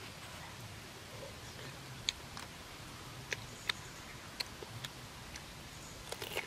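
A few separate sharp clicks and smacks of eating, then a crisp crunching bite into a fresh cucumber near the end.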